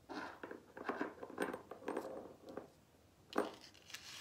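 A small metal pendulum and its chain being handled and set down on a selenite stick: a run of light rustles and clinks, then a sharper tap a little over three seconds in.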